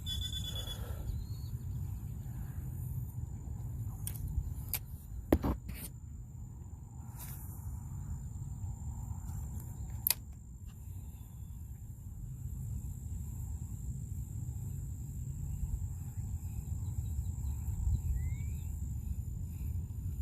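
Wind buffeting the microphone outdoors as a steady low rumble, with a few sharp clicks, the loudest about five seconds in and another about ten seconds in.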